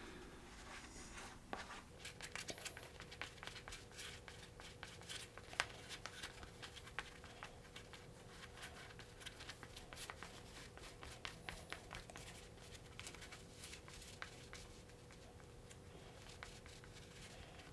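Faint, irregular scraping and ticking of a wooden craft stick spreading contact cement in a thin coat over a sheet of thin foam, with light handling of the sheet.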